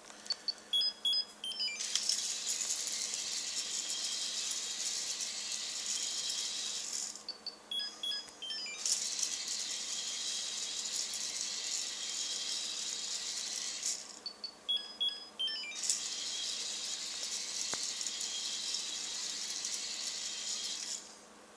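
LEGO Droid Developer Kit R2-D2 with its Micro Scout brick running pre-program 1. It plays a short group of electronic beeps, then its motor and plastic Technic gearing run with a steady rattling whir for about five seconds. Beeps and whir repeat three times, and the whir stops shortly before the end.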